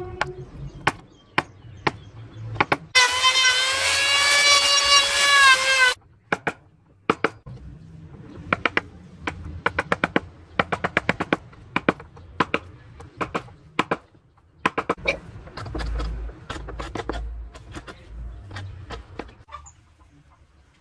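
Wood chisel cutting into a carved wooden body: a long run of sharp clicks and taps as the blade bites and chips break away, stopping shortly before the end. About three seconds in, a loud, drawn-out pitched call lasts about three seconds over the tapping.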